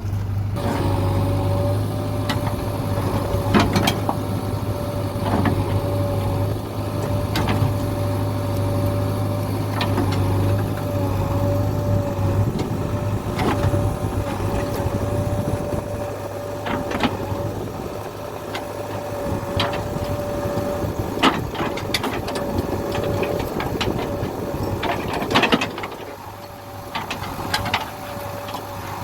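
JCB 3DX backhoe loader's diesel engine running steadily while digging soil, with a steady whine above the engine note and scattered knocks and clanks throughout.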